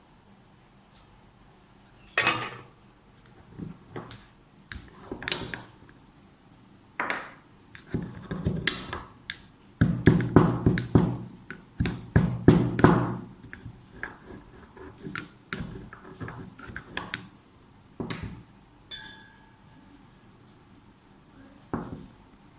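Black peppercorns being crushed with a pestle: irregular knocks, then a spell of rapid pounding around the middle, followed by lighter taps.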